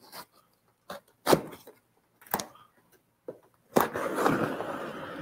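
Small knife cutting the packing tape on a cardboard shipping box: a few short scrapes and taps on the cardboard, then, from about four seconds in, a longer scraping rasp as the blade runs along the taped seam.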